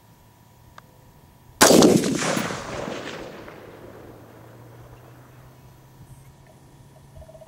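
A single shot from a DSArms ZM4 5.56 AR-15 rifle, a sharp crack followed by a long echoing tail that dies away over about two seconds.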